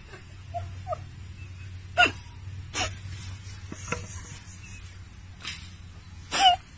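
Dog barking at intervals: about five short, sharp barks, the loudest about two seconds in and near the end.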